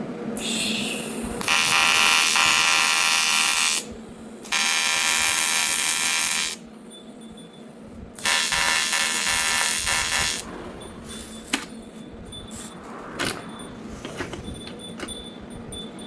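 AC TIG welding arc on aluminium buzzing in three runs of about two seconds each, with short pauses between them, followed by a couple of sharp clicks.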